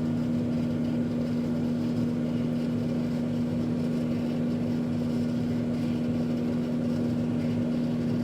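Microwave oven running while heating food: a steady low electrical hum with the fan whirring.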